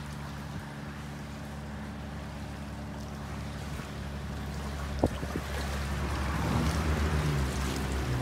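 Water splashing and trickling where a fishing net is hauled up out of a creek, growing louder about six seconds in. A steady low hum runs underneath, and there is one sharp click about five seconds in.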